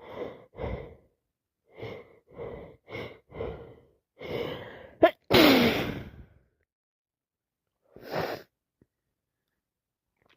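A woman's allergy sneeze: a run of short catching breaths builds up, then one loud sneeze about five seconds in with her voice falling in pitch, and a single short breath near eight seconds.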